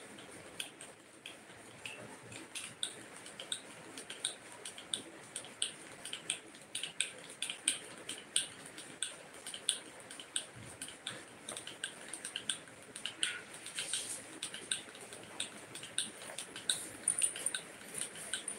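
Light, rapid clicking, a few ticks a second and slightly irregular, from a square woven hand fan being waved back and forth.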